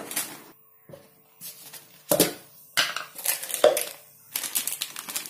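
Kitchen handling noises: scattered clicks, knocks and the rustle of a plastic spice packet as ingredients are picked up and set down, busiest near the end.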